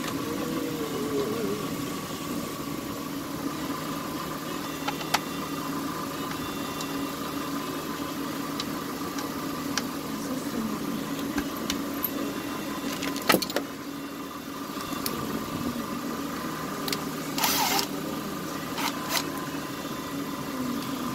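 Scattered clicks and knocks of hands and tools working on a chainsaw on a workbench, over a steady mechanical hum. A sharper knock comes about thirteen seconds in, and a short rasping scrape a few seconds later.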